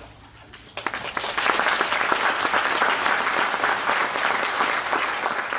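Congregation applauding, starting abruptly about a second in and carrying on as steady, many-handed clapping.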